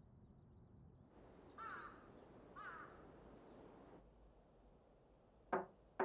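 Crows cawing twice over a soft background hiss, then two sharp knocks on a door near the end.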